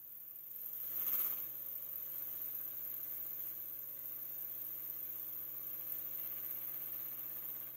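Nissan Titan drag truck's VK56DE 5.6-litre V8 running at a steady engine speed, heard from under the truck, with a brief louder swell about a second in.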